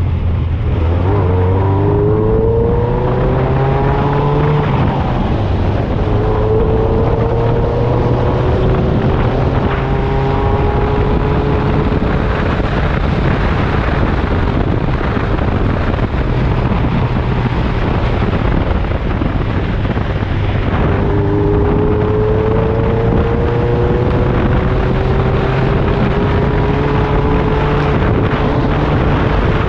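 Off-road buggy engine running under way on a dirt trail. Its note climbs slowly in pitch a few times as it accelerates, over a steady rumble of wind and road noise.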